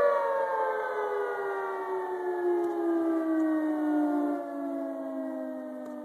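Tsunami warning siren winding down. Its several-toned wail slides steadily lower in pitch and fades.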